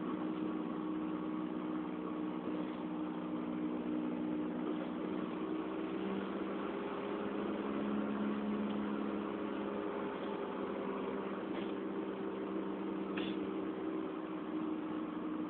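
Rear wheel hub bearing of a 2004 Honda Fit GD3 droning with a low hum, heard inside the cabin while driving over road noise. The drone is the sign of a failing hub bearing. Its pitch shifts a little partway through, and there is a light click near the end.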